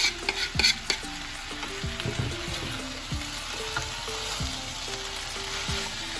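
Cauliflower and potato curry sizzling in an oiled pan as chopped tomatoes are scraped off a plastic chopping board with a wooden spoon and stirred in. There are a few sharp clacks in the first second, then a steady sizzle with the spoon stirring.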